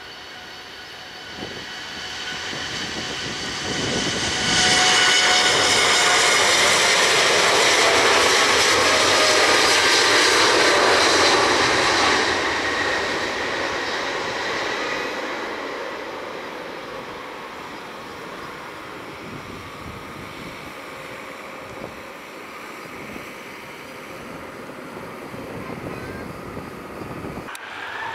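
Jet airliner's engines passing close: the sound builds over the first few seconds, holds loud with a steady whine over the rushing noise for about eight seconds, then slowly fades away.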